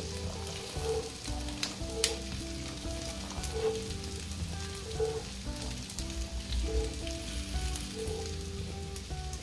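Onions, garlic, ginger and green chillies sizzling in mustard oil in a frying pan. A soft melody of held notes plays over it, with a few light clicks.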